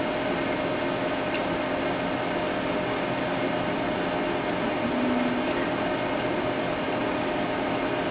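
Zoll Thermogard temperature management console running while it primes its saline tubing: a steady mechanical hum from its roller pump and cooling, with two constant tones and a few faint ticks.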